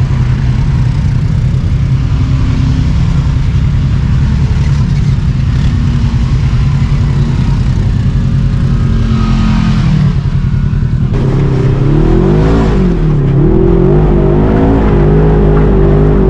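Polaris RZR 1000 four-seat UTV's engine running on a trail ride. About eleven seconds in the sound changes abruptly and the engine note rises and falls as the throttle is worked.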